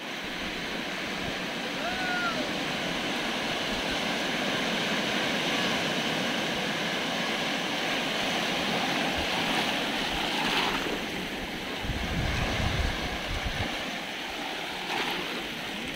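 Sea surf breaking and washing over a rocky shore, a steady rush of water. Wind buffets the microphone with low rumbles around twelve seconds in.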